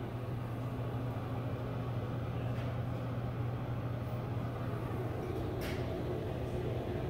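Greenheck ceiling exhaust fan running quietly: a steady low hum with an even rush of air and no rattle or squeal. One brief tick sounds about two-thirds of the way through.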